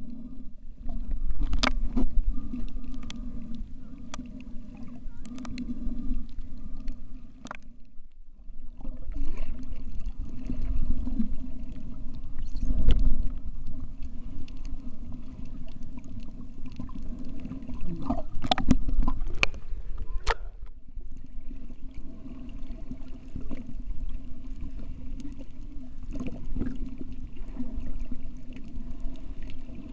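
Underwater sound from a camera held under the sea while snorkeling: a steady low hum with a few fainter higher tones, scattered clicks and knocks, and two brief drop-outs about eight and twenty-one seconds in.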